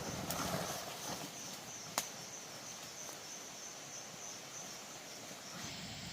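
Insects chirring steadily in a high, fast pulsing trill that cuts off suddenly near the end, with a single sharp click about two seconds in.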